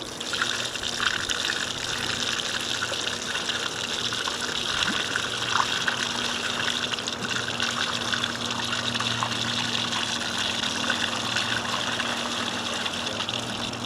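Water pouring and splashing steadily through a whitebait cleaning screen. It starts suddenly and stops near the end.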